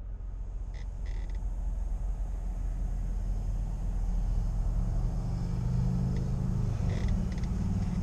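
Vehicle engine idling, heard from inside the cab as a steady low rumble and hum. A few faint short high chirps sound about a second in and again near the end.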